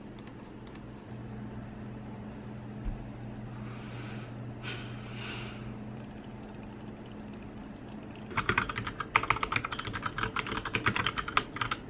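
Fast typing on a Leopold mechanical computer keyboard, a dense run of key clicks starting about eight seconds in, over a steady low hum. A few single clicks come at the start.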